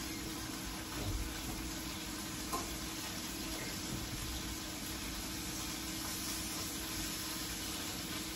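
Food frying in a skillet on a gas stove: a steady sizzle with a faint low hum under it, and a couple of light taps of a utensil against the pan, about a second in and again a second and a half later.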